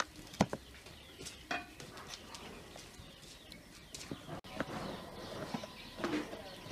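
Small knife cutting a tomato on a wooden cutting board, with a few sharp taps of the blade against the board, the loudest about half a second in. Birds call faintly in the background.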